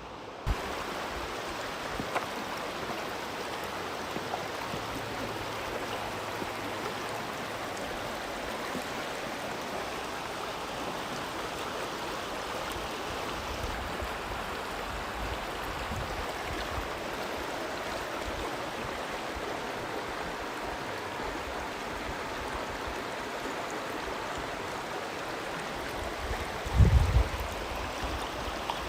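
River water flowing steadily close by, an even rushing sound, with one brief low thump near the end.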